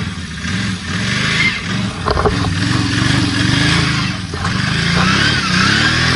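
Can-Am Outlander 570 ATV's V-twin engine running under load while the quad is ridden over rough, soft ground. Its pitch rises and falls with the throttle and climbs near the end. A knock comes about two seconds in.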